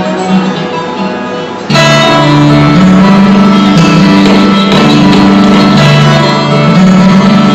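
Background music with acoustic guitar, growing louder and fuller about two seconds in.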